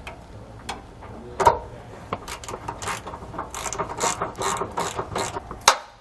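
Socket ratchet clicking as it runs a bolt up into a frame weld nut, a quick run of clicks about four a second, with a louder knock about a second and a half in and a sharp loud click near the end.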